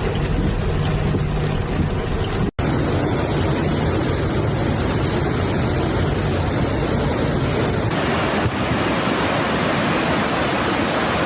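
Floodwater rushing in a steady noisy torrent, with wind noise on the microphone. The sound drops out briefly about two and a half seconds in and changes character about eight seconds in, where one clip gives way to another.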